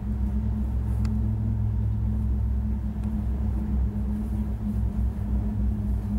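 Gondola lift cabin travelling along its cable, heard from inside: a steady low rumble and hum, with one faint click about a second in.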